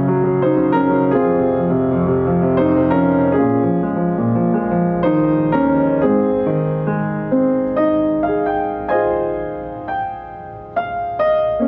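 Piano music: struck notes and chords ringing and fading, easing off about ten seconds in before new notes are played.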